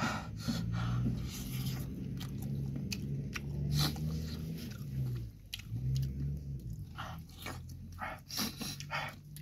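Close-up mouth sounds of a person eating: wet chewing, smacking and biting on fried egg and spicy instant noodles, with short low hums between mouthfuls.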